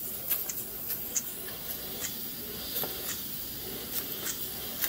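Schoenner 100/7 model steam engine running on compressed air at about 5 psi: a steady hiss of air with scattered light ticks and clicks from the moving parts. With the bearing slack taken up it runs without much extra noise.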